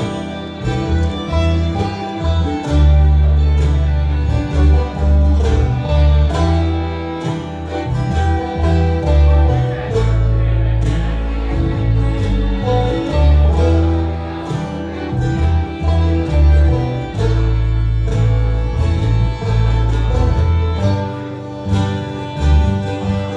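Bluegrass band playing: fiddle, banjo, guitar and mandolin over an upright bass.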